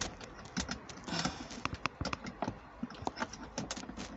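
Irregular small plastic clicks and taps from car centre-console trim pieces and clips being handled and worked into place, several a second with no steady rhythm.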